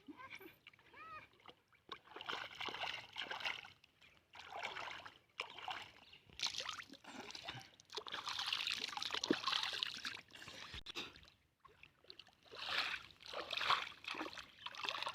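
Water splashing and pouring in irregular bursts, as when a small animal is being washed, with a few faint short squeaks in the first second.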